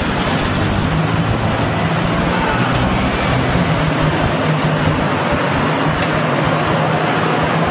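Busy street traffic with double-decker buses and black taxi cabs running past: a steady, dense wash of engine and road noise with a low engine hum that swells and fades.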